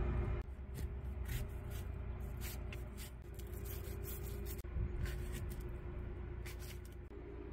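Knife slicing a melon: scattered light scrapes and taps at irregular intervals over a low steady hum.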